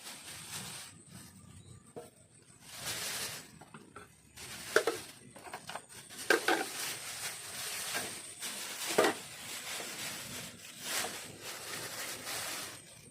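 Irregular rustling and handling noises, with three sharp clinks like utensils or cookware knocking, over a faint steady high whine.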